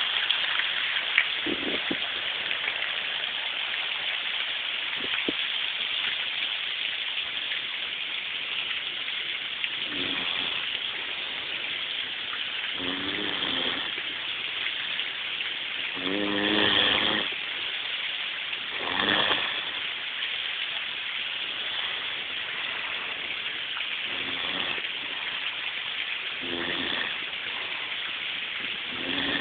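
A person making short, low groans every few seconds, the loudest two near the middle, over a steady hiss.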